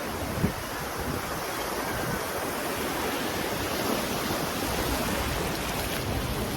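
Sea waves washing and surging, with wind rumbling on the phone's microphone and a brief knock about half a second in.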